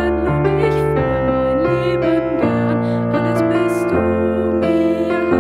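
Music: a slow worship song with keyboard accompaniment.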